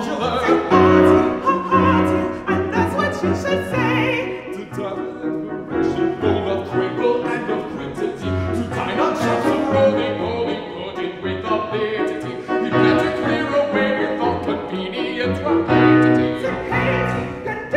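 Singing voices performing a classical-style vocal piece, accompanied by a grand piano.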